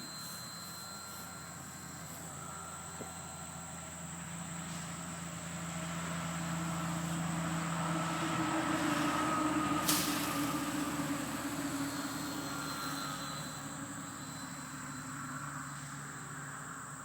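Electric RC 3D aerobatic model airplane flying, its motor and propeller whine shifting in pitch as it manoeuvres. It grows louder toward the middle as the plane comes closer, then fades again. There is one sharp click near the middle.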